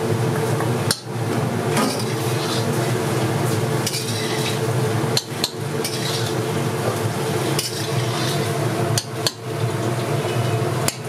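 Metal utensils clinking and scraping against cooking pots, with irregular sharp clinks over a steady hum.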